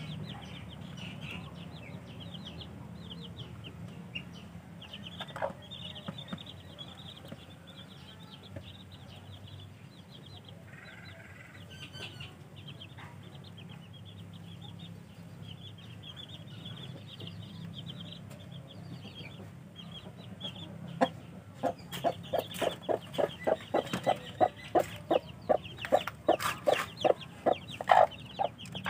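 Baby chicks peeping in quick, high chirps, with a steady low hum underneath. About two-thirds of the way through, a fast run of loud, sharp taps joins in, roughly three a second, and continues to the end.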